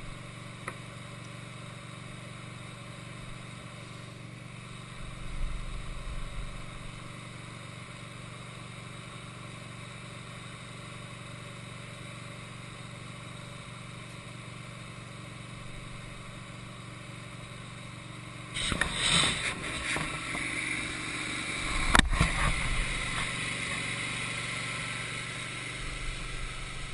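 Wood-Mizer LT15 band sawmill's engine running steadily. About two-thirds of the way through, a louder, harsher noise with a high whine sets in and continues: the band blade cutting through an oak log. A single sharp knock comes a few seconds after the cut begins.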